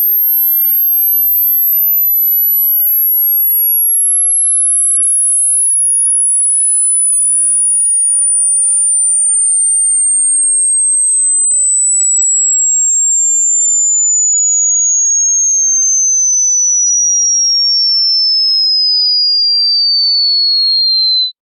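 Hearing-test sine tone sweeping slowly and steadily downward in pitch, from a very high whistle around 13 kHz down to about 4 kHz, at a constant loud level; it cuts off suddenly near the end. The point at which a listener first hears the whistle marks the upper limit of their hearing.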